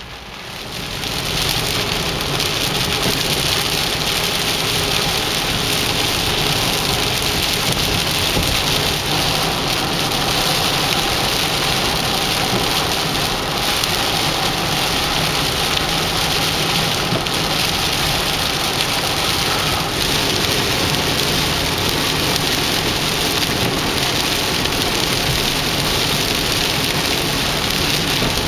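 Heavy rain pouring down in an atmospheric-river storm, a steady dense hiss that swells up in the first second or two and then holds even.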